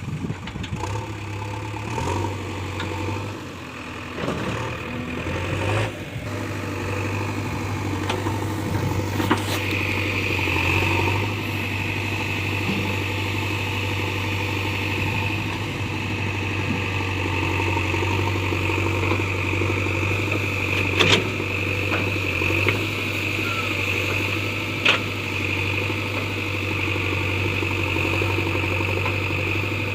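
Diesel engine of heavy farm or earth-moving machinery running steadily, with a higher steady whine joining about a third of the way in and two sharp knocks in the second half.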